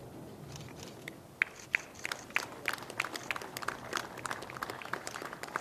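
Many sharp, short clicks: two single ones about a second and a half in, then coming thick and fast in an irregular patter.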